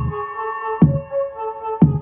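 Electronic dance music played through a mini 12 V car power amplifier into small speaker boxes as a sound check: a synth melody over two deep kick-drum hits about a second apart.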